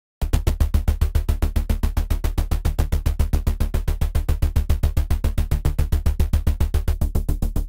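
Pulse-bass patch in the Serum software synthesizer, playing a fast, even stream of short notes with a deep low end. Its tone is textured by FM from the noise oscillator. It starts about a quarter second in.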